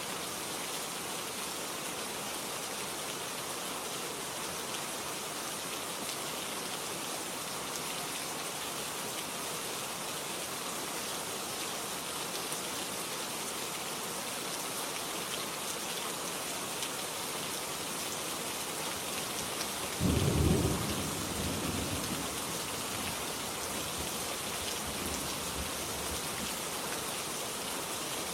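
Steady rain falling, with a sudden low clap of thunder about two-thirds of the way through that rumbles away over a few seconds.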